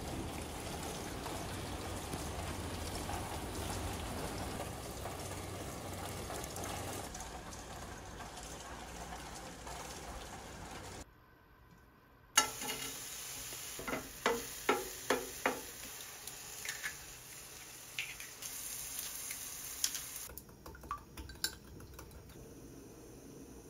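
Steady rain falling for about the first eleven seconds. After a brief silence come kitchen sounds: a quick run of sharp clicks, then scattered light clinks as eggs are beaten in a glass measuring cup.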